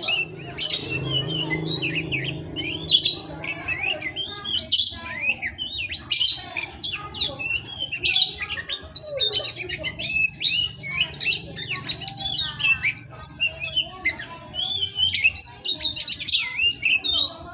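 Oriental magpie-robin (kacer) singing a fast, varied song of whistles and sharp, scratchy notes, phrase after phrase without a break.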